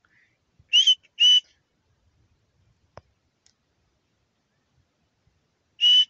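Short, loud, high-pitched whistle blasts close to the microphone: two in quick succession about a second in and another just before the end, a recall whistle to a dog that is far away. A faint click sounds between them.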